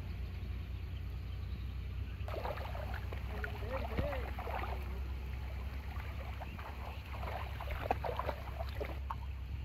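Water splashing as a child's feet wade through a shallow muddy pool, in short irregular splashes that are loudest about four and eight seconds in, over a steady low rumble.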